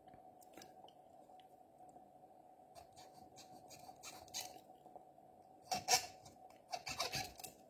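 Short scraping strokes of a Victorinox SwissChamp's metal nail file on the handle scales of a Kershaw Shuffle II pocket knife, rounding off a sharp square inside edge. The strokes are faint at first, with louder runs of strokes about four seconds in and again in the last two seconds.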